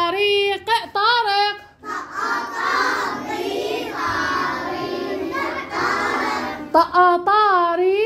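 Children chanting an Arabic spelling drill in a sing-song. A single high voice holds drawn-out notes. From about two seconds in, many children's voices chant together for about five seconds, and then one voice carries on alone.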